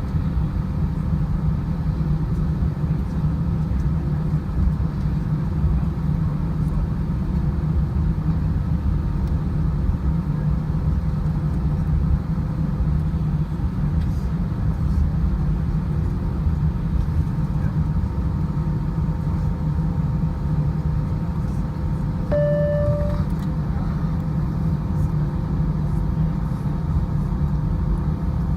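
Steady low rumble of an airliner's engines and cabin air heard inside the passenger cabin before takeoff, with a short single tone about 22 seconds in.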